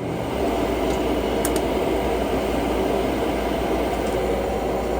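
Gas furnace draft inducer fan coming up to speed in the first half-second, then running steadily: the start of the furnace's ignition sequence, before the igniter heats.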